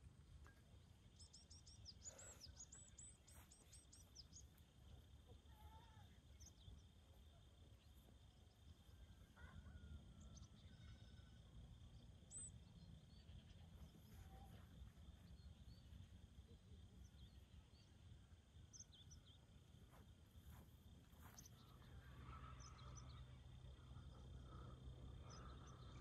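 Faint open-air ambience: scattered distant bird chirps, with a quick run of chirps about a second in, over a steady high thin hum and a low rumble.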